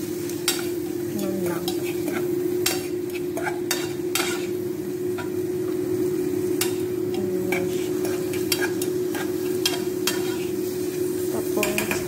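Sliced mushrooms sizzling in butter and garlic in a frying pan while a spatula stirs them, scraping and tapping against the pan many times. A steady hum runs underneath.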